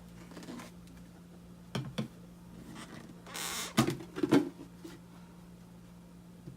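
Household items being handled on a table: two light clicks, a short rustle, then a few louder knocks, over a steady low hum.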